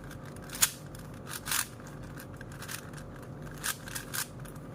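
Plastic 4x4 Rubik's cube layers being twisted by hand: a series of short clicks and scrapes, about six separate turns.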